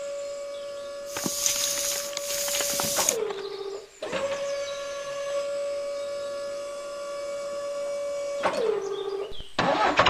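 Small geared electric motor of a DIY toy tractor's tipping trailer, whining steadily as it works the tipper, then winding down with a falling pitch. It starts again about four seconds in and runs for about four and a half seconds before winding down the same way. A loud hiss lasts about two seconds, starting about a second in.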